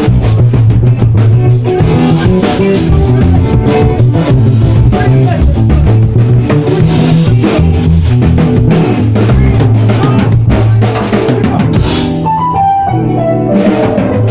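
Live band jamming: a drum kit with kick and snare driving a steady beat under guitar and bass. The drums drop out briefly near the end, leaving the pitched instruments before the beat comes back.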